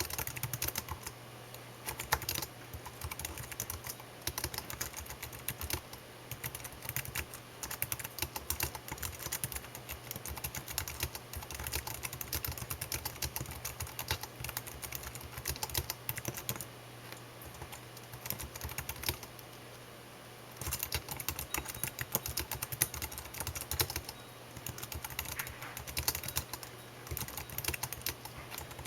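Typing on a computer keyboard: fast runs of key clicks, with a pause of a few seconds about two-thirds of the way through.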